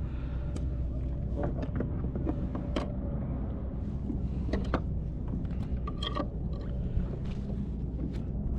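Scattered clicks and knocks of fishing gear and clips being handled on a plastic kayak deck, over a steady low rumble.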